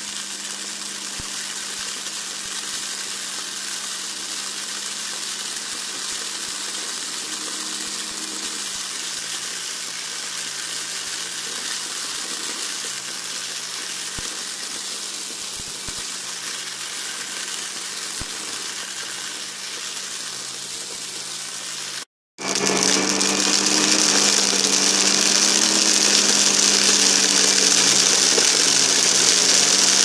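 Vintage Hotpoint Light 'n' Easy upright vacuum cleaner running steadily, a motor hum under a rushing air hiss. After a brief silent break about three quarters of the way through, it comes back louder, with a stronger hiss and a wavering hum.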